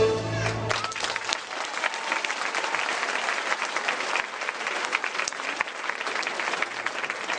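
An audience applauding with steady clapping. The dance music's final held note ends within the first second.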